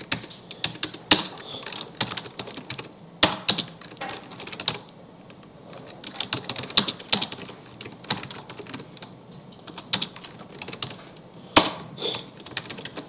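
Typing on a computer keyboard: irregular runs of keystrokes broken by short pauses, with a few single keys struck harder than the rest.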